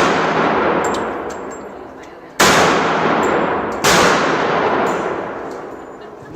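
Two pistol shots about a second and a half apart, each sharp crack followed by a long echoing decay, with faint metallic clinks in between.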